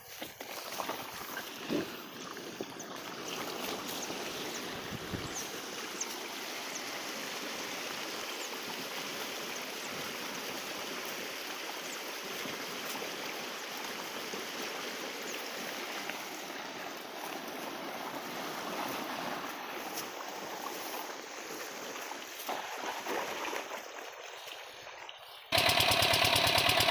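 A steady rush of running water. About a second before the end it gives way abruptly to the much louder, rhythmic running of a small diesel water-pump engine.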